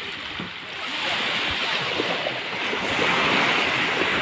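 Small waves breaking and washing up a sandy beach, the surf growing louder about a second in and then holding steady.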